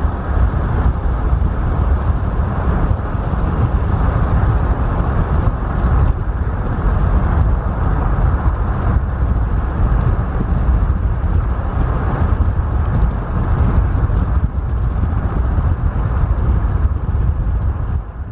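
Steady road and wind noise of a car driving at speed, heard from inside the cabin: a deep rumble with a hiss above it. It fades out at the very end.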